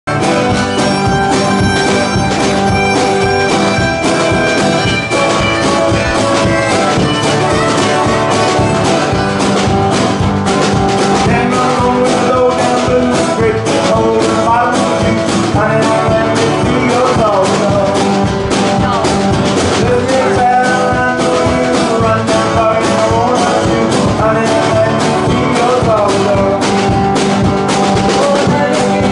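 A live acoustic folk-blues band playing: banjo, acoustic guitar, harmonica, upright bass and drums, with a woman singing lead.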